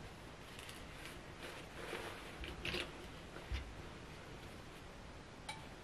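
Faint handling noises: cotton shirting rustling as a cuff is pinned onto a sleeve, with a few light ticks from the pins and a soft knock about three and a half seconds in.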